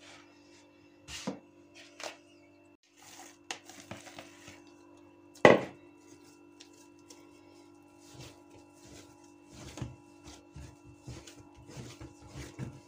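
Hands handling and kneading soft dough on a floured wooden tabletop: scattered soft knocks and pats, one loud thud about five and a half seconds in, then quicker, repeated soft knocks of kneading near the end. A steady low hum runs underneath.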